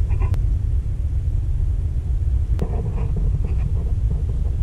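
Wind buffeting the microphone as a steady low rumble, with two sharp clicks, one just after the start and one a little past halfway.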